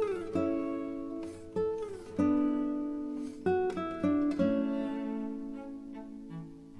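Background music: a plucked guitar playing single notes, with a couple of notes sliding down in pitch, fading out near the end.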